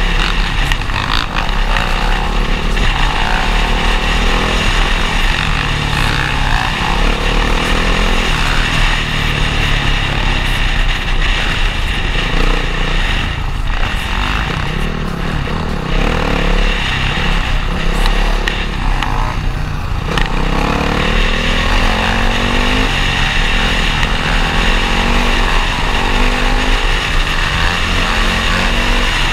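Dirt bike engines running on the road, the pitch rising and falling as they rev and shift, heard from the rider's helmet with heavy wind noise on the microphone.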